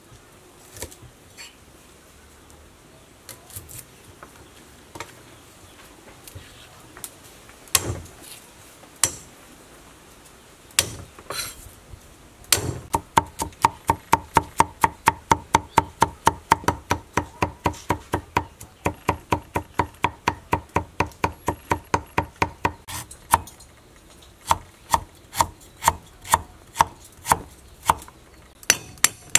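Cleaver chopping garlic on a thick wooden chopping block. A few scattered knocks at first, then rapid, even chopping at about four strokes a second from roughly a third of the way in, slowing to about two strokes a second near the end.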